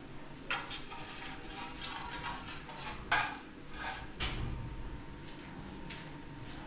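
Short straw hand broom sweeping a tiled floor in several quick swishing strokes, with a metal dustpan scraping and knocking on the tiles.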